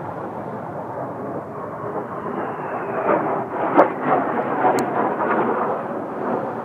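Kawasaki T-4 jet trainers' turbofan engines passing low, the rumbling jet noise swelling and crackling from about three seconds in, with a faint falling whine just before. Two sharp cracks stand out near the middle.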